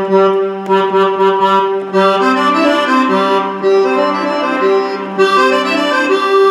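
Roland FR-4X digital accordion playing a melody over a steady held low note, with an orchestral strings voice layered under the accordion voice. About two seconds in the tone turns brighter as a different accordion register is selected while the strings play on.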